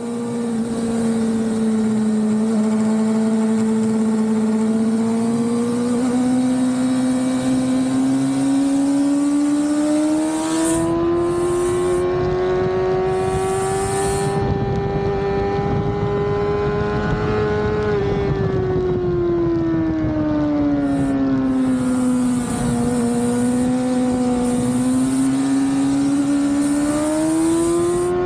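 Suzuki GSX-R600 inline-four sportbike engine heard from on board at speed, with wind rushing over the microphone. The engine note climbs slowly, drops sharply about eighteen seconds in, eases lower for a few seconds and then climbs again near the end. The wind rush grows heavier about ten seconds in.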